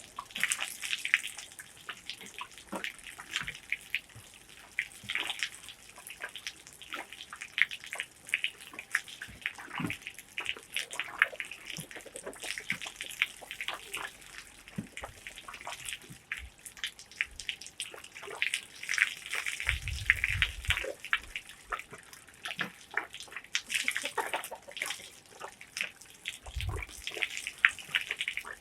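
Water splashing and sloshing irregularly as goat skins are rinsed and worked by hand, with a couple of dull low thumps near the end.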